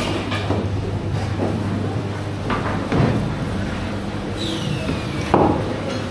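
Knocks and thuds of cleavers and fruit on wooden work tables, irregularly spaced with the loudest about five seconds in, over a steady low machine hum. A short falling squeak comes just before that loudest knock.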